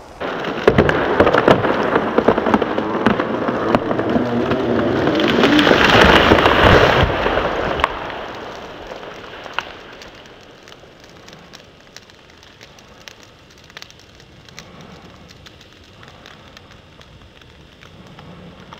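A fire-weakened pine, burned through at its base, breaking and falling. A sudden loud rush of snapping branches and debris crashing down through the canopy builds to its loudest about six seconds in, then dies away about eight seconds in to scattered crackles and small bits of debris dropping.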